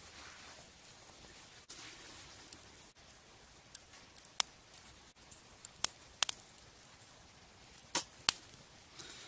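Twig fire crackling in a small folding metal wood stove: a scatter of sharp pops and snaps, loudest from about four to eight and a half seconds in, over a quiet background.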